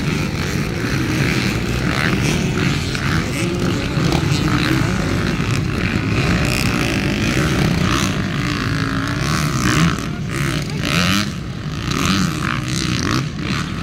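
Motocross dirt bike engines running and revving up and down as the bikes ride the bumps of a dirt track.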